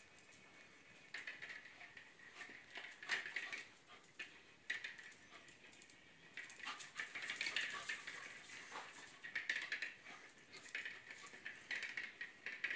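Irregular clicking and clattering: a corgi's claws on a tile floor and a plastic toy hamster ball knocking about, busier from about six seconds in.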